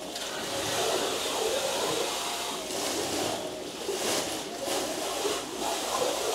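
Water sloshing and splashing in concrete de-sliming tanks as workers wade and stir the milled ore slurry by hand, a steady, uneven wash of noise.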